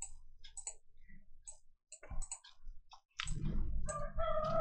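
Computer mouse buttons clicking, scattered single clicks. Near the end a low rumble comes in, then a steady held tone.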